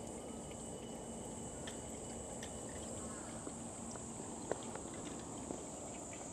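Steady high insect buzz, with scattered drips of water from a drinking-fountain spout plinking into the stone basin below, including a sharper drip about four and a half seconds in.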